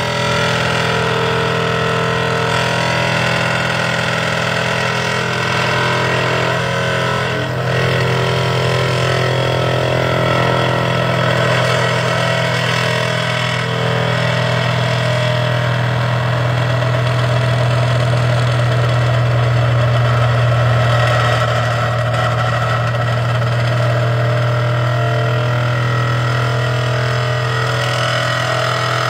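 Vibratory pile hammer on a long-reach excavator driving a steel sheet pile into the ground: a loud, steady drone that swells slightly about two-thirds of the way through.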